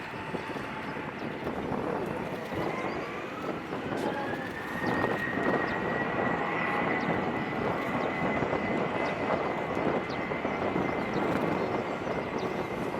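Boeing 737-800's CFM56-7B turbofan engines spooling up for takeoff. A whine rises over a couple of seconds, then holds steady above a broad roar that grows louder as it does.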